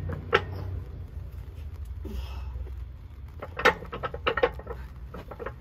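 Steel pin being worked into the pin bore of an excavator arm: sharp metal clicks and knocks, one shortly after the start and a quick run of them in the second half, over a low steady engine hum.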